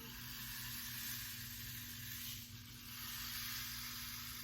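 Rain stick tipped over, its beads trickling down inside with a steady hiss.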